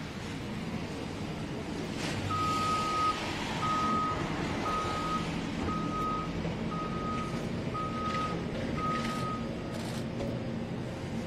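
Backup alarm of a heavy vehicle beeping seven times, about once a second, while the vehicle reverses with its engine running steadily underneath.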